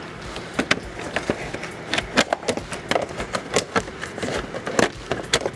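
Hard plastic engine-bay air intake duct and cover being worked loose by hand, giving a rapid, irregular run of sharp plastic clicks and knocks as its tabs pop free.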